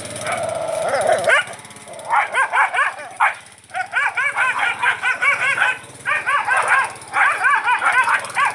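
Dog yapping: quick runs of short, high-pitched yips, several a second, in three bursts with short pauses between.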